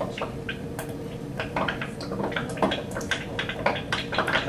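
Chlorine and acetylene (ethyne) reacting underwater in a glass cylinder: gas bubbles flashing off with irregular sharp pops and clicks, several a second, over a steady hum.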